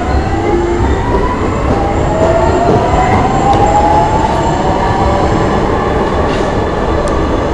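Subway train running past the platform as it pulls out: a loud steady rumble with a whine rising in pitch over the first few seconds.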